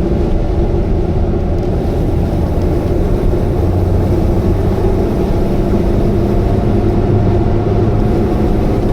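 Subaru Vivio's 660 cc four-cylinder engine droning steadily with road rumble at a constant cruising speed, heard from inside the cabin. The owner suspects that the car's abnormal noise may be an exhaust leak.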